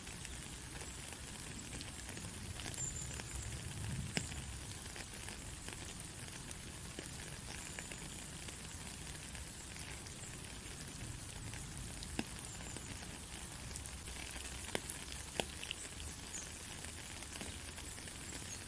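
Steady rain falling on a country road, an even hiss with scattered louder drop ticks.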